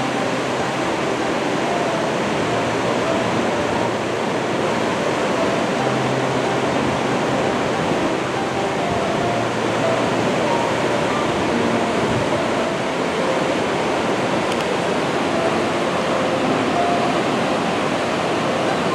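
A river in flood pouring over a low dam, a steady rushing of whitewater without a break.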